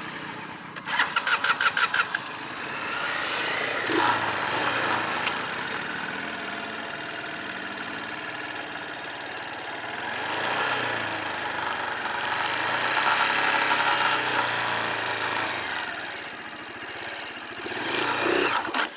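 Dirt bike engine cranked with a quick run of even pulses about a second in, then running, its revs rising and falling before fading near the end.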